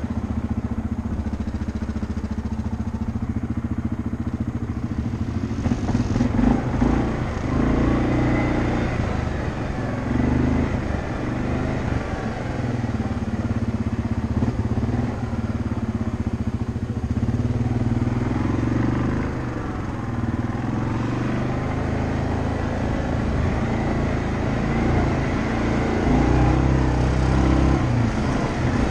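ATV engine running while being ridden over a rough dirt trail, its pitch and loudness rising and falling repeatedly with the throttle.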